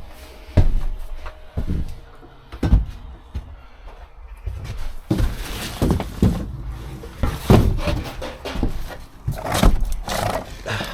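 Irregular knocks, clunks and rattles of hard gear being handled, as gutter vacuum poles and nozzles are pushed together and tried for fit.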